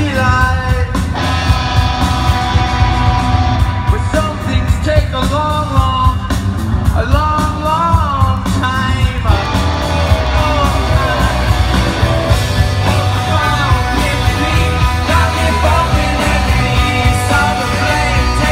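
Rock band playing live: a male lead vocal sung over electric guitars, bass and drums, with a heavy, booming low end, heard from within the audience.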